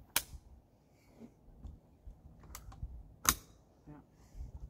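A handful of sharp metallic clicks and clacks from guns and ammunition being handled. The loudest comes a little over three seconds in.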